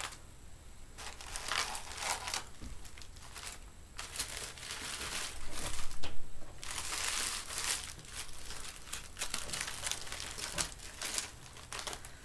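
Brown honeycomb kraft packing paper crinkling and rustling as it is pulled out of a cardboard shipping box and handled, in irregular bursts, loudest about six seconds in.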